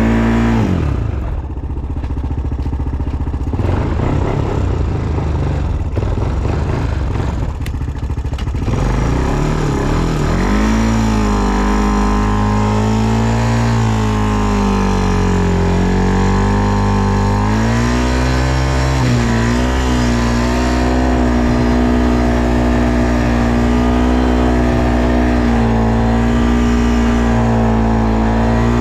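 ATV engine running under way, its pitch falling as the throttle comes off at the start, a rougher, noisier stretch for several seconds, then pulling steadily again with the pitch gently rising and falling with the throttle.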